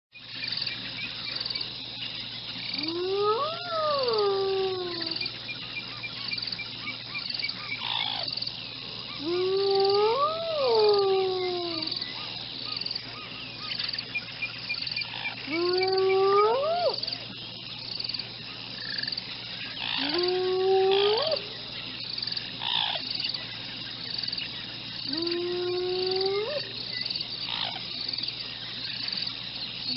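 Hyena whooping: a series of long calls, each gliding up in pitch and some falling away again, one every five to six seconds. Steady insect chirping runs underneath.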